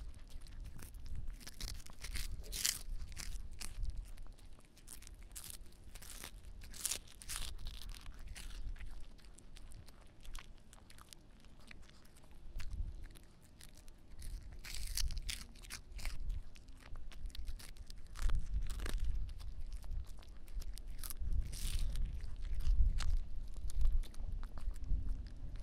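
A small dog crunching and chewing a freeze-dried pond smelt treat close to the microphone, the crisp crunches coming in short runs every few seconds. A low wind rumble on the microphone runs underneath and is heaviest in the last third.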